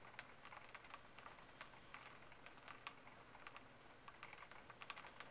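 Raindrops ticking faintly and irregularly against a window pane, a few small taps a second, bunched more closely near the end.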